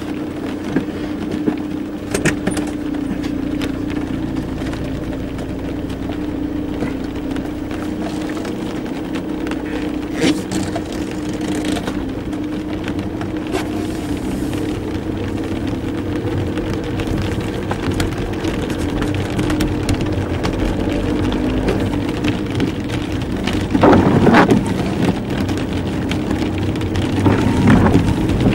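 Car engine running, heard from inside the cabin, with a steady low hum. In the second half tyre noise on a wet road grows louder, with two louder swishes near the end.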